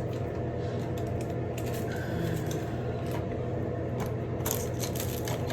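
Small items clicking and rattling as someone rummages through a makeup bag looking for mascara, with a run of quick clicks near the end, over a steady low hum.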